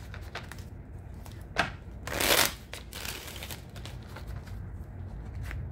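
A deck of tarot cards being shuffled by hand: quick papery flicks and riffles, with a louder rush of cards about two seconds in.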